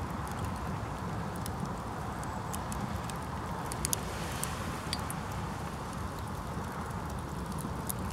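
Wood campfire crackling, with irregular small sharp pops scattered throughout and a slightly stronger pair about four seconds in, over a steady low background rumble.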